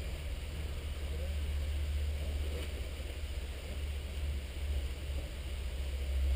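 Wind buffeting the camera's microphone, a steady low rumble that swells a little near the end.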